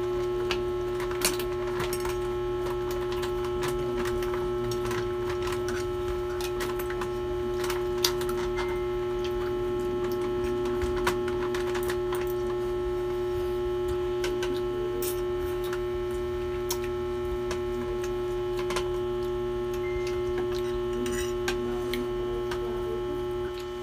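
A steady electrical hum with a clear pitched tone, joined now and then by short clicks of forks against plates and a metal platter. The hum drops a little just before the end.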